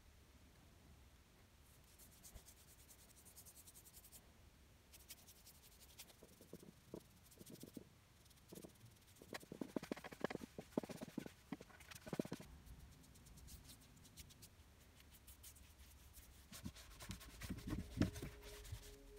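Faint rubbing and scratching of a cloth wiping stain onto bare oak, loudest about halfway through, followed by a few low knocks near the end.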